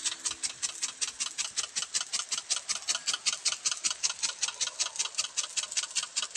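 Impact sprinkler on a riser pipe ticking rapidly and evenly, about seven ticks a second, as its spring-loaded arm knocks in and out of the water jet, over a faint hiss of spray.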